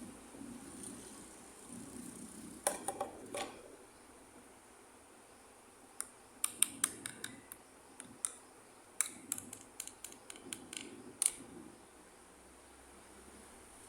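Small plastic toy pieces being handled, giving a short cluster of clicks and then a quick run of sharp clicks and taps.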